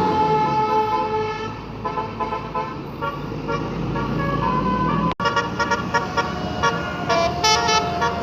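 Bus "telolet basuri" multi-tone horn playing a tune of held notes that change pitch, over an engine rumble. The sound cuts out briefly about five seconds in.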